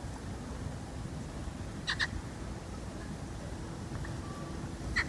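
A bird calling twice, each call a quick pair of short sharp notes, about three seconds apart, over a steady low outdoor background.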